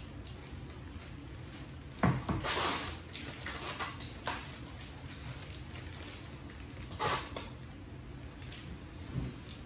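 Rustling from handling a large bouquet of red roses and its black wrapping paper: a loud rustle about two seconds in lasting about a second, a shorter one about seven seconds in, and a soft thump near the end.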